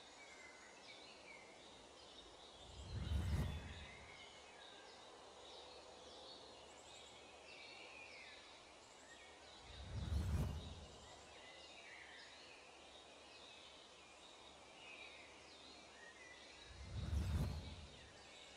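Faint ambience of small birds chirping and twittering. Three soft whooshes swell and fade about seven seconds apart, timed with the slide changes.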